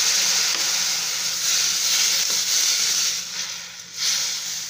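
Roasted vermicelli in a hot steel pan sizzling as hot water is poured in and stirred. The sizzle dies down a little past three seconds in, then flares up again briefly about four seconds in.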